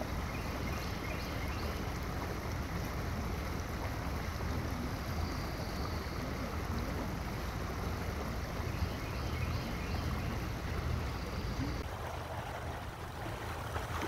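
Boat engine running steadily as the boat motors along a calm canal, a low drone under the rush of water and wind; the drone weakens near the end.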